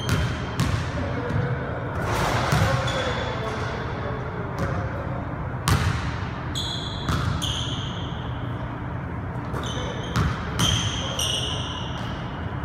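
Basketball dribbled on a hardwood gym floor in uneven bounces, with short high sneaker squeaks on the wood as the player cuts, bunched a little past the middle and again near the end.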